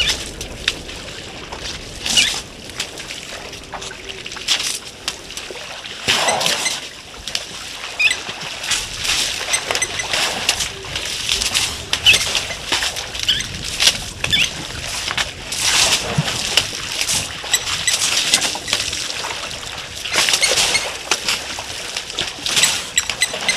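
African elephants drinking and wading in a shallow waterhole: irregular splashing and sloshing of water as trunks and feet move through it.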